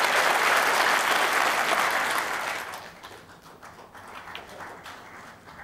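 Audience applauding, then dying away about three seconds in.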